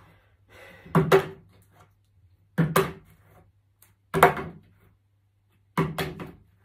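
Part-filled plastic bottle flipped onto a wooden table, landing four times about a second and a half apart. Each landing is a quick double knock.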